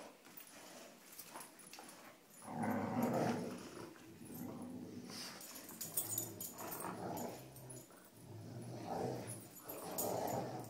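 Dogs play-growling while tugging on a rope toy: a few rough growls with short breaks between them, the first and loudest starting about two and a half seconds in.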